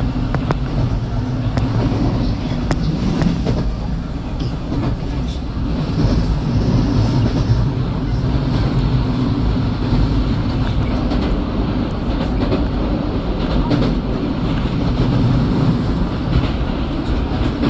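JR West 223 series 2500-subseries electric train with Hitachi IGBT inverter running along the track: a steady low rumble of wheels on rail, with scattered sharp clicks over rail joints.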